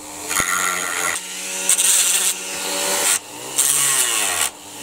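Dremel rotary tool with a sanding drum grinding away hard plastic on a toy excavator's bucket linkage, in passes of about a second with short breaks; its motor whine dips and recovers between passes.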